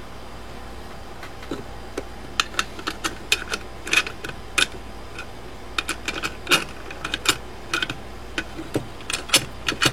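Sharp, irregular metallic clicks and taps from a mortise lock's steel case and parts being handled as its cover plate is fitted back on, starting about a second and a half in and coming several a second at times.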